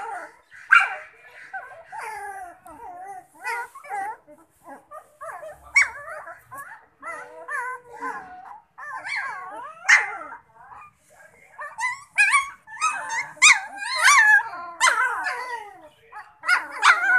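Central Asian shepherd puppies yapping and whining as they play-fight, short high calls coming one after another and growing busier and louder in the last few seconds.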